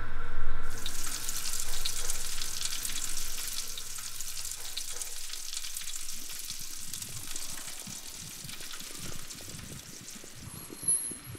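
Sizzling hiss with fine crackles, setting in about a second in and slowly fading away.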